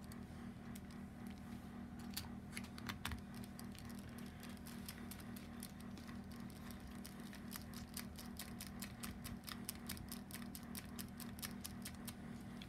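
Small sharp metal clicks of tiny head bolts being set into the cylinder head of a Toyan FS-L400 model engine. The clicks are scattered at first and come several a second from about halfway in, over a steady low hum.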